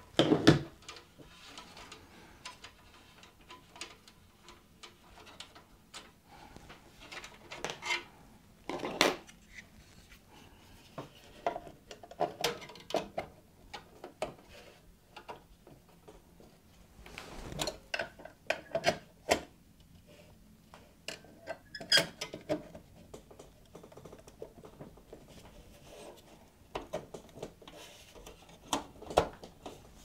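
Irregular clicks, knocks, metal clinks and rubbing from hands handling metal parts inside a desktop PC case while an NVMe-to-PCIe adapter card is fitted into a PCIe slot. The loudest is a sharp knock right at the start, with further clusters of clicks scattered through.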